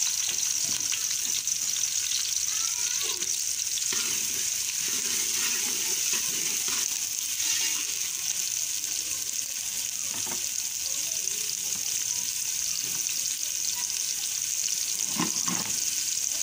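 Chopped onions sizzling steadily in hot ghee in an aluminium pot, stirred with a steel ladle. A couple of knocks of the ladle against the pot, one about ten seconds in and one near the end.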